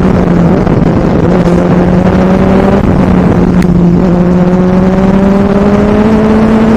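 Benelli 600i motorcycle's inline-four engine running under way at road speed, its pitch creeping up and dropping back a few times with the throttle.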